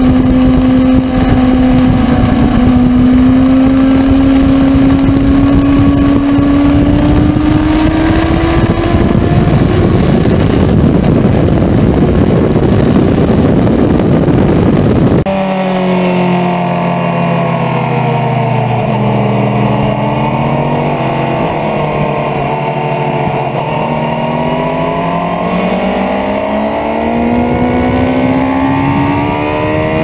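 Onboard sound of a Honda sportbike's inline-four engine at speed on a race track, over heavy wind rush. The engine note climbs steadily through the first half. After a cut about halfway, the note drops as the bike slows, then climbs again as it accelerates.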